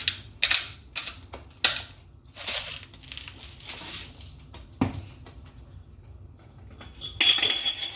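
Salt being added to a pan of simmering lasagna meat sauce: a run of short gritty crunching bursts. A sharp knock comes about five seconds in, and near the end there is a bright metallic clink and ring of utensils against cookware.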